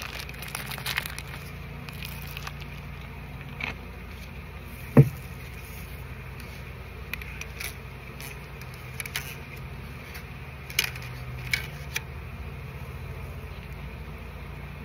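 Honey bee colony humming steadily, with scattered light clicks and one sharp knock about five seconds in.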